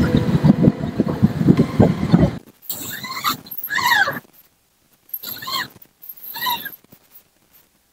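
Background music cuts off about two and a half seconds in. Then an animal calls twice, each call made of two arching cries that rise and fall in pitch.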